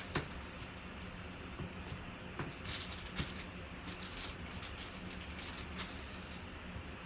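Trading cards and their packaging being handled and sorted: scattered light clicks, taps and rustles, the sharpest just after the start, over a steady low hum.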